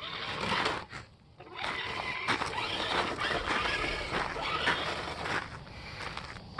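Electric motor and drivetrain of an RC trail truck whining as it drives over rocks, in two spells: a short burst, a pause of about a second, then a longer run under power.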